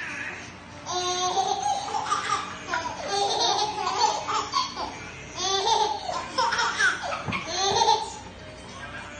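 Babies laughing and squealing in high-pitched bursts, starting about a second in and stopping about eight seconds in.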